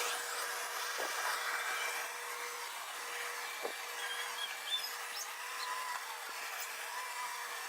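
Dyson DC39 canister vacuum running steadily during vacuuming, heard thin and fairly quiet: a steady hum over hiss with a few faint ticks.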